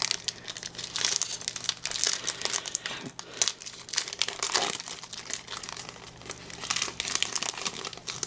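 Foil wrapper of a Pokémon trading-card booster pack being torn open and crinkled by hand, a dense run of crackles and rustles.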